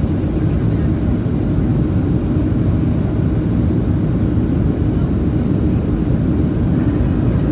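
Steady cabin noise inside a Boeing 737-700 in flight, heard from a window seat over the wing: a low, even mix of the CFM56 turbofan engines and rushing airflow, with no distinct events.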